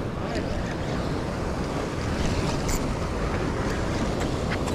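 Ocean swell and surf washing against a rock ledge, with wind buffeting the microphone in a steady rush. A few faint clicks sit on top of it.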